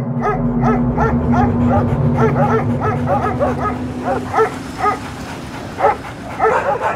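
Street dogs barking over and over, about three barks a second, with a low engine hum underneath that fades out about four seconds in.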